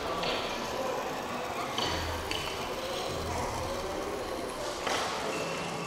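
Indistinct crowd chatter echoing in a large exhibition hall, with a sharp click about five seconds in.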